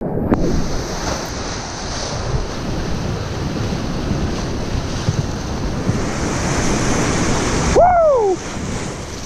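Whitewater rapids rushing and breaking around a solo open canoe, with wind buffeting the microphone. About eight seconds in, a brief cry rises and then falls in pitch over the water noise.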